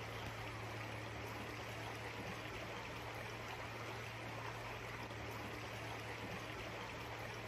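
Creek water running steadily, an even, unbroken rush of flowing water, with a steady low hum underneath.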